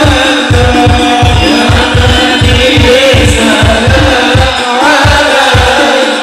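A group of men singing Islamic devotional songs (sholawat) in unison through microphones and loudspeakers, over a steady heavy drum beat of about three beats a second.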